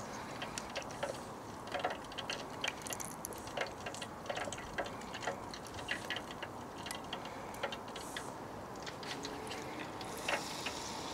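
Hot oil crackling in an electric deep fat fryer while battered cod fries: a steady run of small, irregular crackles and pops over a faint hiss.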